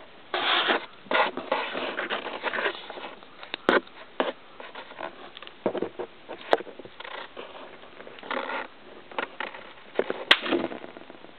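Rustling and scraping handling noise, broken by three sharp clicks or snaps about four, six and a half and ten seconds in; the last is the loudest.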